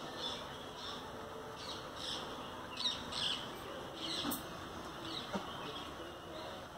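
Birds calling in short chirps, a cluster of them about two to four seconds in, over steady outdoor background noise.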